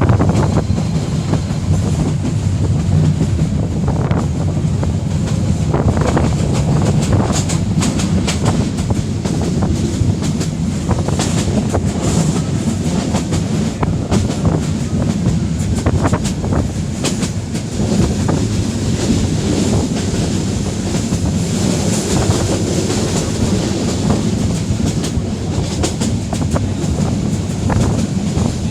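A train running at speed: steady rumble with the rapid clickety-clack of wheels over rail joints.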